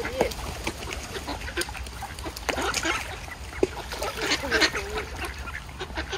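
A flock of mallards quacking and chattering, with many short calls overlapping one another.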